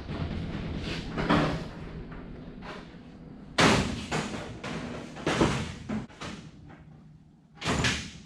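Sheet-metal body panel being handled and worked on a race car: irregular rattling and scraping with several sharp bangs, the loudest about three and a half seconds in.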